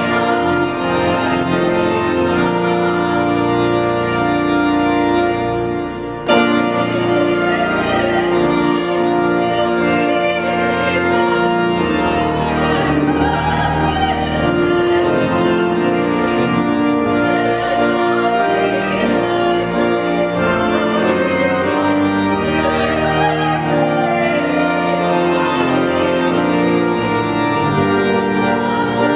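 Solo female voice singing a hymn to church organ accompaniment, the organ holding sustained chords under the melody. There is a brief dip about six seconds in, then a full re-entry.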